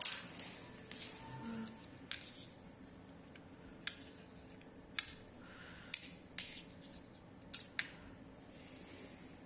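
About ten sharp, irregularly spaced clicks from small hard parts being handled, over a faint steady background.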